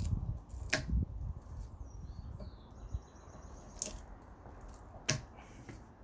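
Wire-cutting pliers snipping and clicking on copper, four sharp snaps spread across a few seconds with handling noise between.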